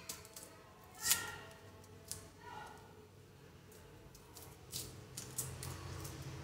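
Irregular sharp snips and clicks of a hand-held cutting tool, with one loud click about a second in and a quick run of clicks near the end.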